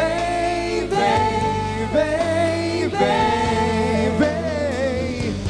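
A woman singing a slow worship song in Portuguese into a microphone, drawing out long held notes that change about once a second, over steady sustained backing chords.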